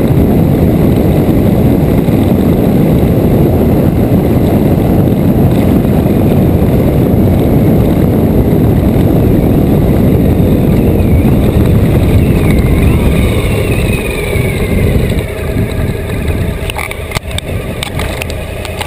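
Motorcycle riding at speed: heavy wind rush on the bike-mounted camera's microphone over the running engine. About fourteen seconds in, the engine note falls and the rush eases as the bike slows, with a few sharp clicks near the end.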